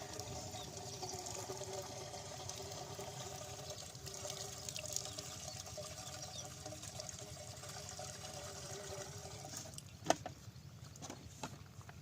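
Water pouring and splashing steadily from a pumpset outlet, with a steady hum beneath it that stops almost ten seconds in, followed by a few sharp knocks.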